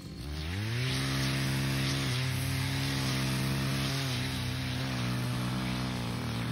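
Gas brush cutter engine revving up to high speed within the first second, then held at a steady high throttle with slight dips. The sound cuts off suddenly at the end.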